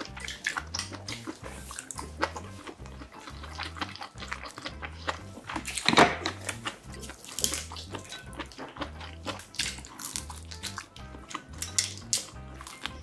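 Close-miked eating sounds: wet chewing and slurping, with chopsticks and a spoon clicking against bowls and dishes, over soft background music. One sharper, louder sound comes about halfway through.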